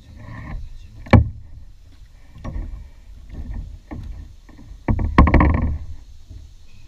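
Knocks and splashes as a hooked bass is swung out of the water into a plastic kayak: a sharp knock about a second in, a few softer bumps, and a louder splashing, rattling burst about five seconds in.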